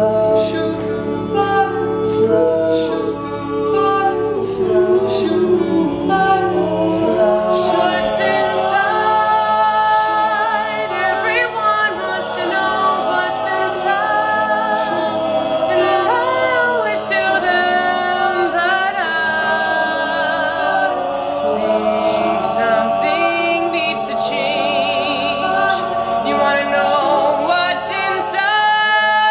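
Men's a cappella group singing a song in multi-part harmony, several voices sounding together with no instruments.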